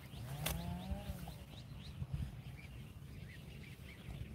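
Small birds chirping rapidly over and over. About half a second in there is a click and one short, drawn-out voice-like call.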